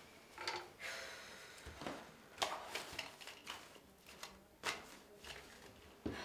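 Faint, scattered handling noises: a handful of light clicks, taps and soft rustles spread irregularly over a few seconds.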